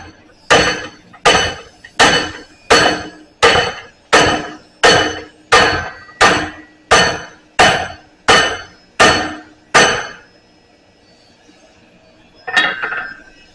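Blacksmith's hammer striking a bar clamped in a vise to bend it: about fourteen ringing metal-on-metal blows at a steady pace of a little under one and a half a second, stopping about ten seconds in. A brief clank comes near the end.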